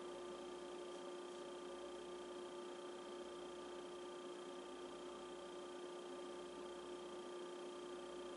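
Steady faint hum made of several fixed tones over a soft hiss, unchanging throughout.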